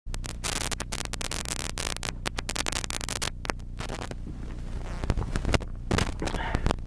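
Steady electrical hum with crackling static and frequent sharp clicks, from a microphone and recording rig picking up interference.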